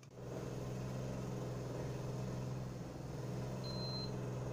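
Water boiling in a wok on an induction cooktop, heard as a steady low hum with a bubbling hiss over it. A short high beep sounds about three and a half seconds in.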